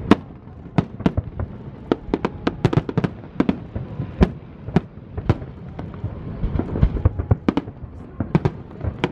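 Aerial fireworks bursting in quick, irregular succession: many sharp bangs, about two or three a second and some in tight clusters, with the loudest one right at the start.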